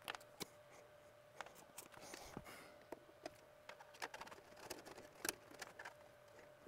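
Faint, irregular small clicks and scrapes of hand work in a breaker panel as a neutral wire is fitted into the neutral bus bar, over a faint steady hum.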